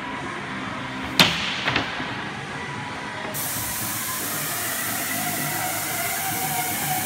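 Paint sprayer hissing steadily as paint is sprayed onto a wall, with a sharp loud burst a little after a second in and a smaller one half a second later.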